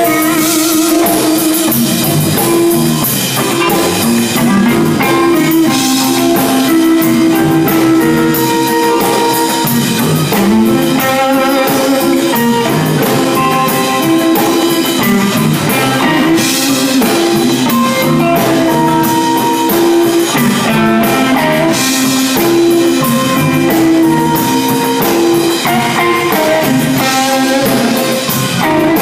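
Live electric blues band playing an instrumental passage: electric guitars, bass guitar and drum kit together at a steady, even loudness.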